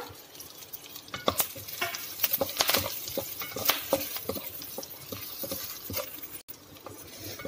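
Slotted wooden spatula stirring and tossing whole shallots, garlic and dried red chillies in hot oil in a pan: irregular clicks and scrapes of wood on the pan and the tumbling shallots, over a faint sizzle.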